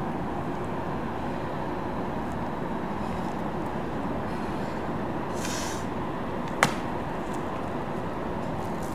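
Steady outdoor background rumble, like distant city traffic. A brief hiss comes about five and a half seconds in, and a single sharp tap follows a second later.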